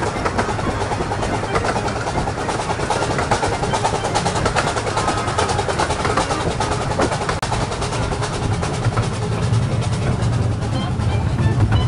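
The 15-inch-gauge steam locomotive Dr Syn hauling its carriages at speed: steady running noise with rapid, uneven clattering of wheels on the track, heard from a carriage window.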